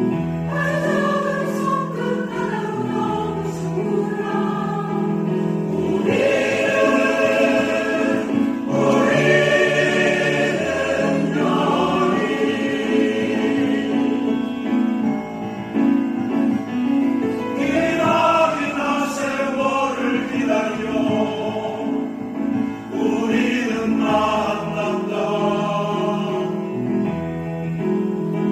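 A choir singing a song with accompaniment, in phrases that swell and ease off.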